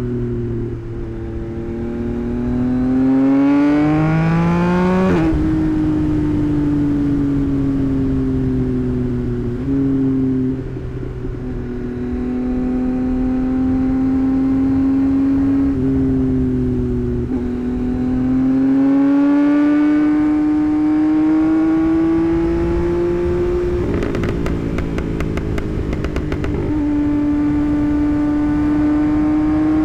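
Tuned 2024 Yamaha MT-09's 890 cc three-cylinder engine and exhaust under way, rising in pitch as it accelerates, then dropping sharply on an upshift about five seconds in. It cruises and eases off, pulls again with a rising pitch, with a couple of seconds of rapid crackling near the end, then settles to a steady cruise.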